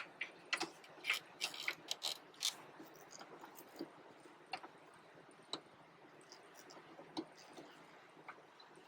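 Light plastic clicks and taps as a 9005 LED headlight bulb is pushed and twisted into its socket in the headlight housing. The clicks come quickly over the first few seconds, then only now and then.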